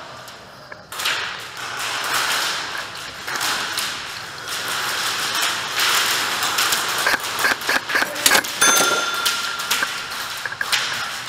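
Rustling handling noise from an airsoft player moving with a rifle. A quick cluster of sharp clicks comes about seven to eight seconds in, then a steady high tone for under two seconds.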